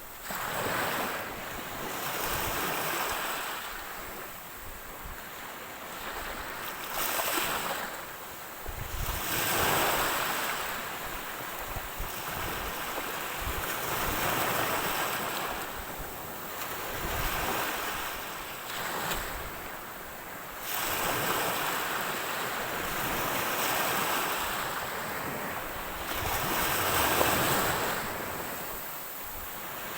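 Ocean surf: waves breaking and washing in, swelling and falling back every few seconds, with some wind on the microphone.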